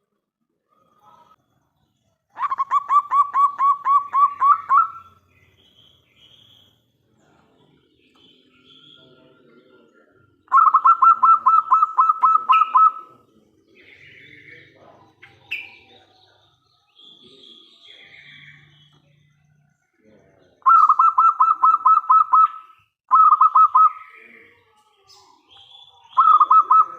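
Zebra dove (perkutut) singing: several phrases of rapid, pulsed cooing notes, each lasting about two seconds, separated by pauses of several seconds. Faint short chirps from other small birds sound in the gaps.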